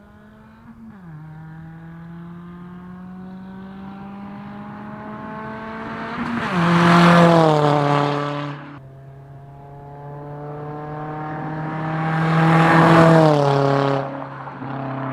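Straight-piped Scion tC four-cylinder exhaust, with no muffler, accelerating hard through the gears in two runs. The note rises in pitch and gets much louder as the car comes past, with drops in pitch at the shifts. The sound is loud and raspy: the 'ricey' note of an exhaust with its muffler removed.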